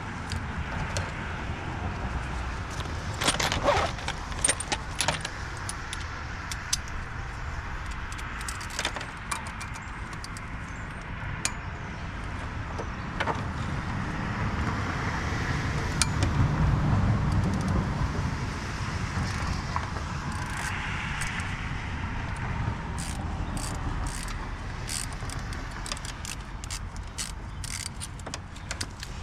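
Metal hand tools clinking and clicking irregularly as bolts are worked loose in a car's engine bay, over a low rumble that swells about halfway through.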